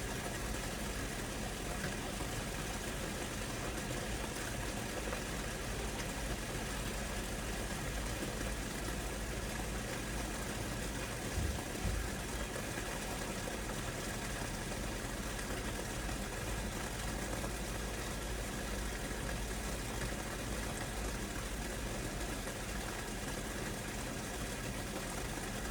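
Steady rain falling, an even hiss with a low rumble underneath, and two brief low thumps about halfway through.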